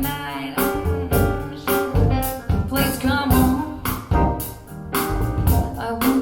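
A jazzy song, a singer over piano and drums with a steady beat, played back through PSB Alpha P5 bookshelf speakers.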